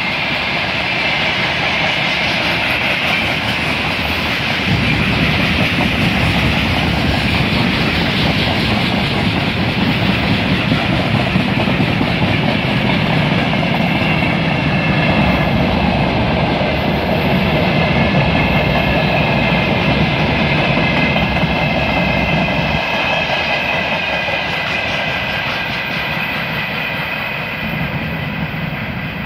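Freight train wagons rolling past, their wheels clattering steadily over the rail joints with a continuous rumble and faint high ringing tones. It grows a little quieter near the end as the tail of the train moves away.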